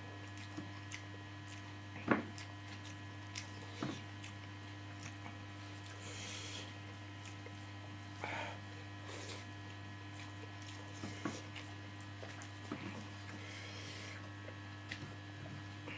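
A person eating rice with their fingers: scattered chewing and mouth smacks and small clicks, the sharpest about two seconds in, over a steady electrical hum.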